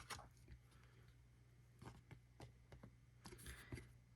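Near silence with a few faint soft ticks and rustles of trading cards being handled and slid apart.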